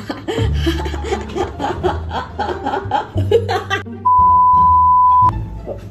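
A woman laughing over background music, then about four seconds in a television colour-bars test tone: a single loud, steady high beep lasting just over a second that cuts off abruptly.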